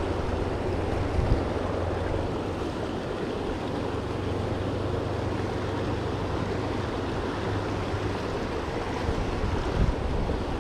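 Steady rush of a fast-flowing mountain creek running over rocks, with wind rumbling on the microphone at times.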